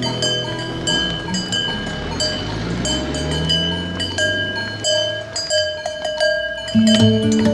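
A cow mooing, one long low call that slides in pitch, over background music with bell-like plucked notes.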